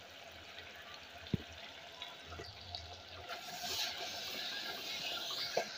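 Beef and fresh tomato paste sizzling in hot ghee in a clay handi as the paste goes in and is stirred with a spatula. A single sharp click comes about a second and a half in, and the sizzle grows louder from about halfway.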